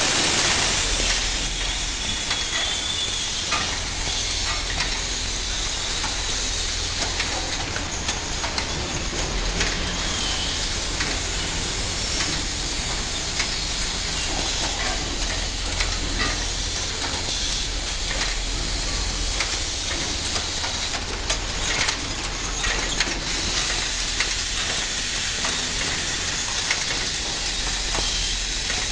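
Automated production-line machinery running: a steady hiss over a low hum, with frequent irregular clicks and clatter of moving parts.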